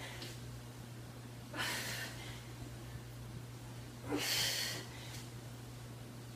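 A woman's hard exertion breaths: two forceful breaths through the mouth about two and a half seconds apart, over a faint steady low hum.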